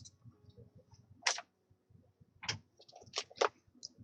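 A few scattered, separate soft clicks and taps, the clearest a little over a second in, with a few more in the second half.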